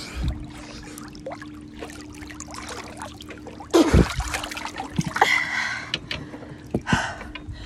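Lake water sloshing and splashing around a phone held at the surface by a swimmer, with a faint steady low hum underneath. A loud splash and knock comes about four seconds in, followed by shorter splashes.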